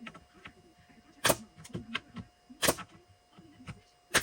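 Three sharp impacts about a second and a half apart, with lighter clicks between, as a glued joint of a wooden cabinet carcass is fastened.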